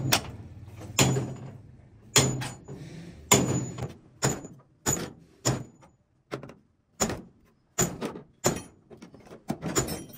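Hammer striking sheet metal on a truck cabin, about a dozen separate blows at roughly one a second, each with a short metallic ring. The blows come closer together near the end.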